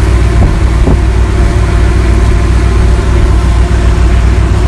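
A yacht's engine running steadily under way, a loud, even, low drone.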